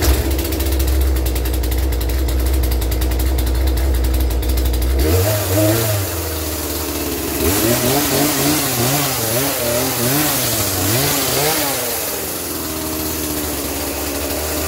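Poulan Pro PP4218A two-stroke chainsaw running on its newly installed carburetor: it catches on the pull at the start and idles steadily, then is revved, with a run of quick throttle blips, and drops back to a steady idle near the end.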